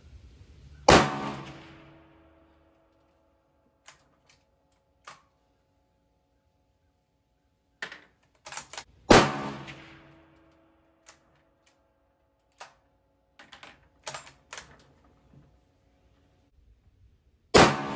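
Three shots from a Ruger American Gen II bolt-action rifle firing 69-grain .223 hand loads, about eight seconds apart, each a sharp crack with a short ringing tail. Between the shots come light metallic clicks of the bolt being worked.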